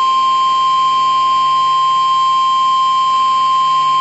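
NOAA Weather Radio warning alarm tone: a single loud, steady, high-pitched tone held without a break. It is the alert signal that comes before a tornado warning is read.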